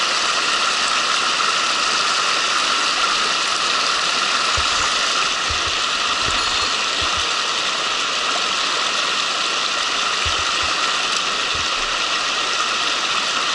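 Mountain stream water running over shallow rocky riffles: a steady, even rush, with a few dull low bumps midway.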